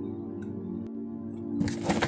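Background music with sustained tones. Near the end comes a brief rustle and scrape of a cardboard box being handled.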